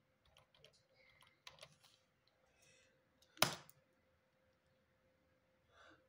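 Computer keyboard keys tapped softly several times in the first couple of seconds, then one much louder key strike about three and a half seconds in as the command is entered, over a faint steady hum.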